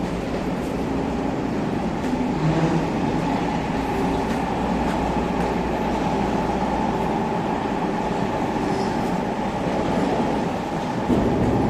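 An electric commuter train running past on the line: a steady running noise with a low hum.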